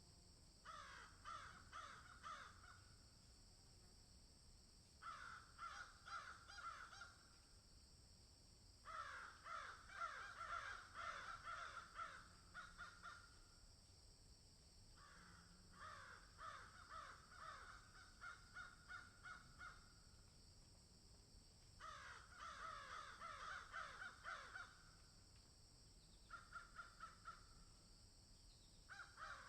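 Crows cawing in a series of bouts of quick, repeated caws, about six bouts separated by short pauses. A steady faint hiss runs underneath.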